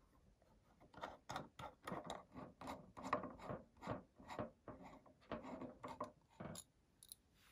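Hand screwdriver backing out the last screw of a metal miner case's bottom plate: a faint run of short rubbing, scraping strokes, about three a second, that stops about six and a half seconds in.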